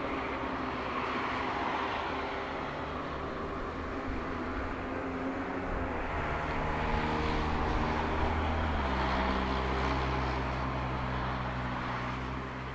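Boeing 777-200ER's twin jet engines at low thrust as the airliner taxis after landing: a steady hum and whine over a rushing hiss. The low hum steps down in pitch about two-thirds of the way through.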